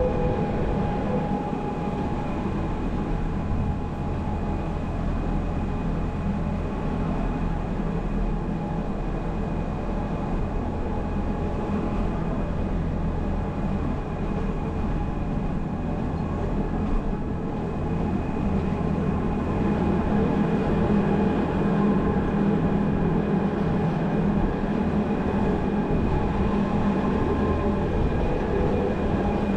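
Gornergrat Railway's electric rack (cogwheel) train running downhill: a steady low rumble of the running gear with several constant tones humming over it, growing slightly louder about two-thirds of the way through.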